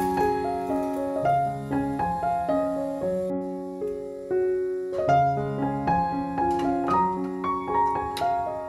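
Background music: a gentle piano melody of sustained notes.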